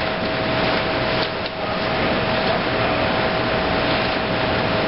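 Steady machine drone with a constant hum, with a couple of faint knocks about a second and a half in.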